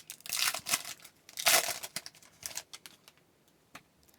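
Foil wrapper of a hockey card pack crinkling and tearing as it is opened, loudest about a second and a half in and stopping after about two and a half seconds.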